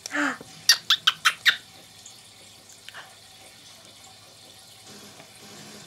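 A short murmur of voice, then a quick run of about five wet kisses, lip smacks planted on a baby's head, about a second in.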